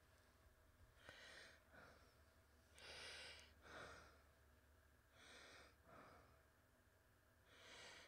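Near silence: a person breathing softly close to the microphone, several breaths in and out every second or two, over a low steady hum.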